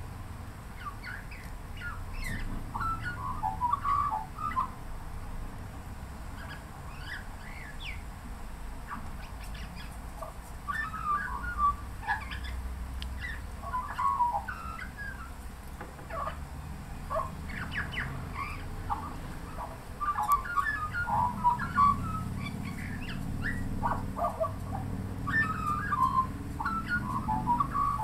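Australian magpie warbling: phrases of quick chirps, whistles and trills, with short pauses between them.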